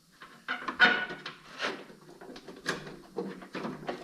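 Hard plastic scraping, squeaking and knocking as a tight-fitting car light is worked loose by hand, with a sharp squeak and knock about a second in.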